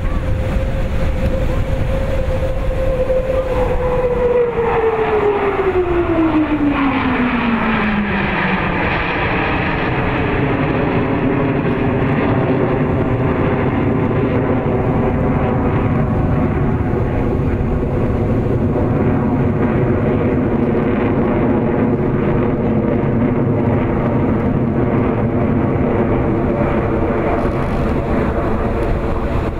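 Jet noise from Blue Angels F/A-18 Hornets flying overhead. A high whine holds, then falls steeply in pitch between about four and eight seconds in as a jet passes. It settles into a steady drone with layered tones over a continuous roar.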